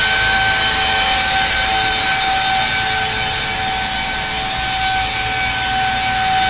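Makita cordless power head with blower attachment running at a steady full speed: a high, even fan whine over the rush of air from the nozzle.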